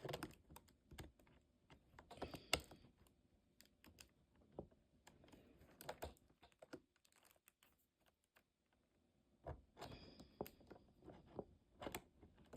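Faint, irregular clicks and light rattles of a mini chainsaw's bar, chain and cover being handled and fitted by hand, with a brief pause a little past the middle.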